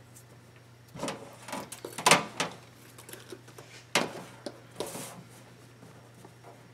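Handling knocks and clatters as a hot glue gun and a hardened hot-glue crown are picked up and moved about on a stainless steel worktop: a few separate knocks, the loudest about two seconds in, over a faint steady low hum.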